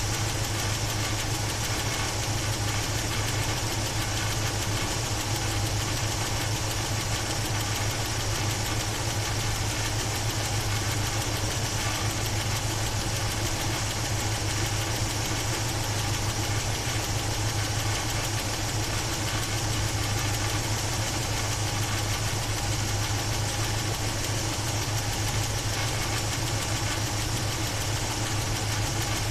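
Chevrolet 350 small-block V8 idling steadily at an even speed. The owner is chasing a top-end noise in this engine that he takes for a bad valve, not lifter tick.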